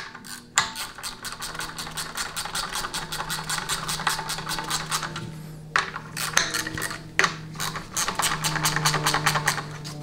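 Hand ratchet clicking rapidly and evenly as it runs a bolt down into an aluminium 700R4 transmission case, with a couple of short pauses.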